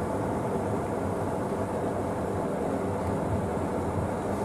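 Steady running noise of a night-train passenger coach on the move, heard from inside: an even rumble of wheels on the rails with no change in pace.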